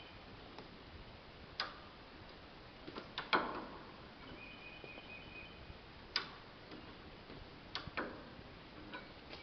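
A handful of sharp clicks and knocks at uneven intervals, the loudest about three seconds in, over a low background hiss, with a faint high steady tone in the middle.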